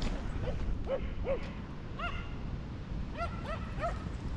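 A dog giving short, high yips, about eight of them in uneven groups.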